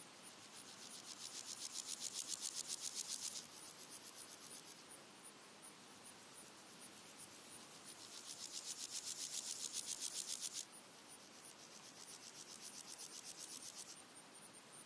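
Red-legged grasshoppers stridulating: high, rapidly pulsed rasping phrases a few seconds long that swell in loudness and then stop abruptly. Two loud phrases and fainter ones from other individuals overlap, over a faint steady high ticking of other insects.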